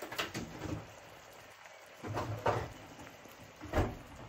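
A few short knocks and scrapes of a wooden spatula working in a non-stick frying pan of simmering curry sauce.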